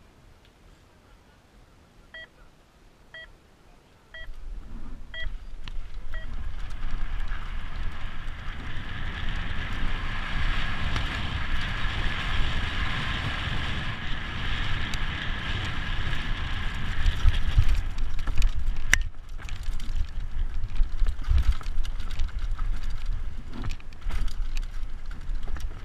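An electronic race start timer beeping five times, about a second apart. From about four seconds in, wind rushes over the camera microphone and a downhill mountain bike's tyres rumble over gravel and rocks, with the bike clattering over the bumps.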